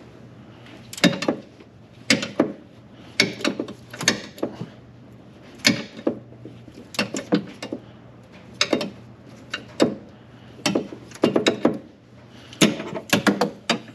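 A 3/8-inch ratchet driving a spring-loaded oil filter wrench, clicking in short groups of sharp clicks about once a second as it is worked back and forth on a tight oil filter.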